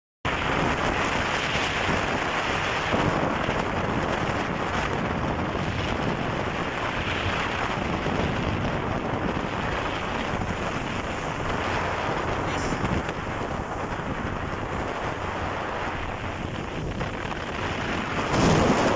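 Strong wind buffeting the microphone over rushing sea water as a motor yacht runs through choppy water, with a louder gust near the end.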